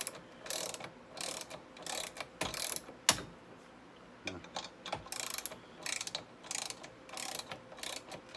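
Socket ratchet wrench on a long extension clicking in short runs as its handle is swung back and forth, driving a long-threaded bolt into a brake backing plate to pull out a stuck star washer. There is a brief pause about halfway and a single sharp knock about three seconds in.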